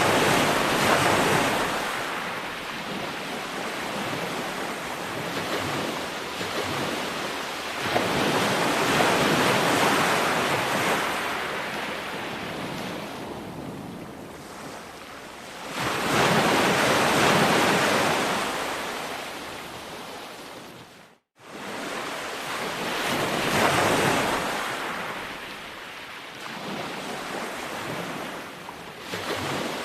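Ocean waves breaking on a beach: a loud rushing hiss that swells and recedes about every seven or eight seconds. The sound cuts out for a moment about two-thirds of the way through, then resumes.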